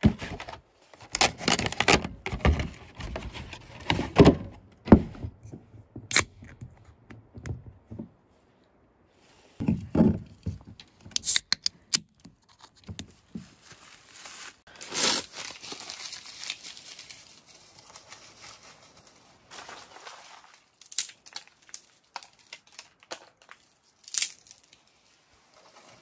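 Camp-setup handling noise: a run of knocks and thunks. A beverage can's tab cracks open about a third of the way in, followed by paper crumpling and tearing, and clicks of kindling being laid in a small steel wood stove near the end.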